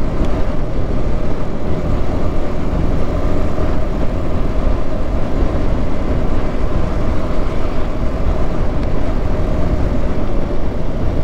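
Yamaha R15M's 155 cc single-cylinder engine running at a steady cruise, under heavy wind rumble on the GoPro action camera's microphone.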